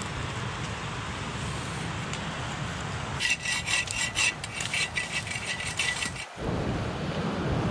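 Folding bow saw cutting through a small tree branch with quick back-and-forth strokes, starting about three seconds in and lasting about three seconds. A steady wind-like background noise runs before and after.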